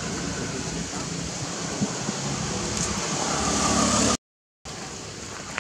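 Steady rumble of a motor vehicle running nearby, building in loudness, cut by a short total dropout of the sound about four seconds in.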